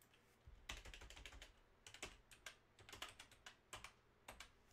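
Faint typing on a computer keyboard: a run of quick, irregular key clicks that starts about half a second in and stops shortly before the end.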